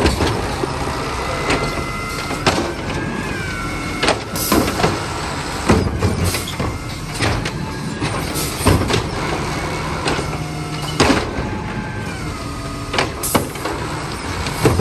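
Compressed-natural-gas automated side-loader garbage truck running while its hydraulic arm works. A whine shifts up and down in pitch as the arm moves, over a steady engine drone. The grabber and plastic recycling carts clank and bang several times.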